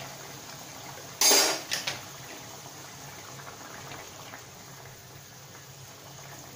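A metal utensil clanks loudly against the metal kadai about a second in, with two lighter knocks just after, over the soft bubbling of curry simmering in the pan.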